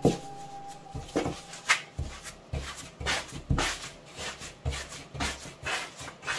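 Soft bread dough being slapped, pressed and folded by hand on a floured pastry mat, then pushed and scraped along the mat with a plastic dough scraper: a string of irregular soft thuds and short scrapes.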